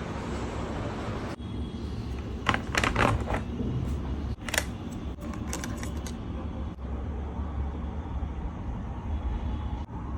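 A run of sharp clicks and clatter over a steady low rumble, bunched together a few seconds in, the loudest around the middle.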